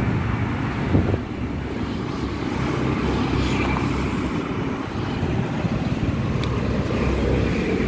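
Steady low rumble of outdoor background noise, with one short click about a second in.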